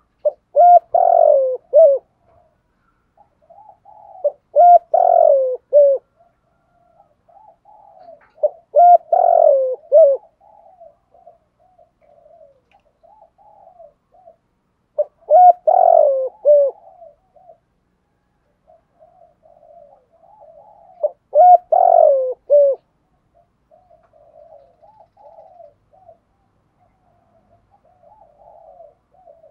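Spotted dove cooing: five loud three-part coo phrases, one about every five to six seconds, with softer, quicker cooing between them.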